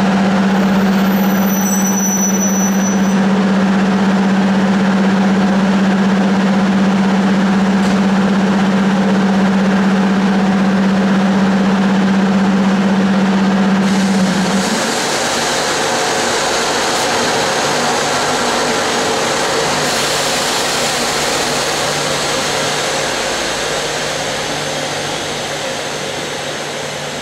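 Air compressor of an EA650 electric locomotive running at standstill, a steady loud hum over dense mechanical noise. About halfway through, the hum drops a little in pitch and level and a high hiss sets in.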